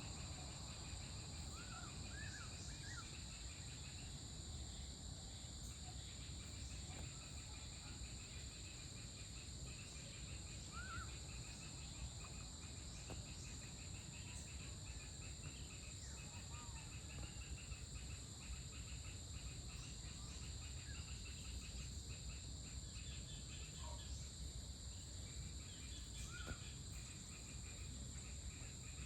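Evening insect chorus of crickets: a steady high-pitched trilling with a faster pulsing layer beneath it, over a low rumble. A few short bird chirps come now and then, a cluster of them near the start and single ones later.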